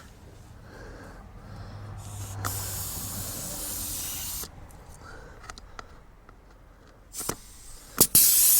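Compressed air hissing at a tire valve stem for about two seconds in the middle, over a low steady hum. Near the end come a few sharp clicks, and another burst of hiss starts at the very close. The tire is a backhoe front tire found far under-inflated at about 10 psi.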